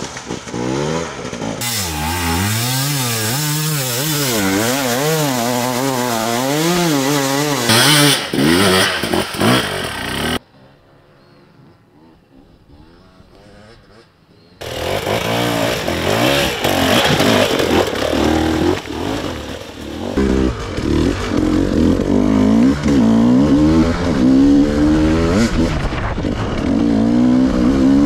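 Off-road enduro motorcycle engines revving hard on a steep climb, the pitch rising and falling over and over with the throttle. About ten seconds in the engine sound drops away to a faint background for some four seconds, then the loud revving returns.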